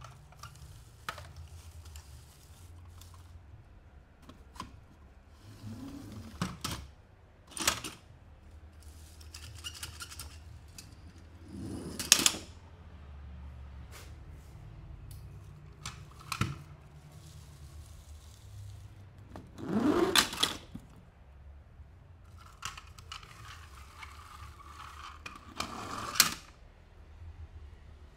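Disney Pixar Cars toys being unboxed by hand: their packaging is handled and opened in short separate bursts of scraping and rustling, with scattered clicks in between.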